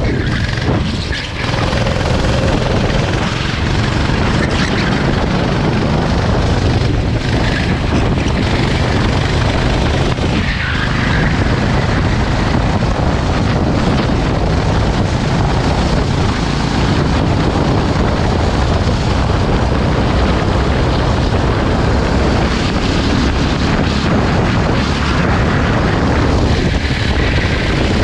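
Racing go-kart engine running hard at speed, under a dense rush of wind and road noise. The level dips briefly about a second in and again around the middle.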